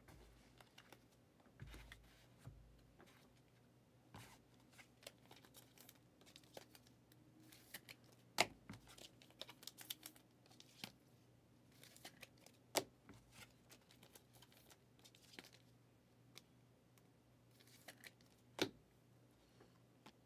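Faint handling of trading cards: cards rustling, sliding and being tapped down onto a stack, with a few sharper taps about eight, thirteen and nineteen seconds in.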